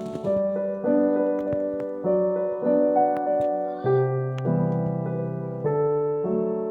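Background music: gentle piano or electric piano playing sustained chords that change about every second.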